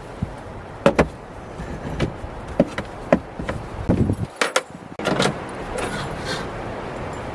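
Scattered sharp clicks and knocks, over a steady rush of wind noise.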